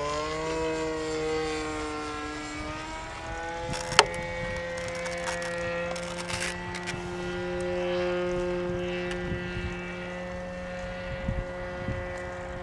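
Model airplane's propeller engine droning in flight overhead, its pitch sagging over the first few seconds and then holding steady. A sharp click about four seconds in.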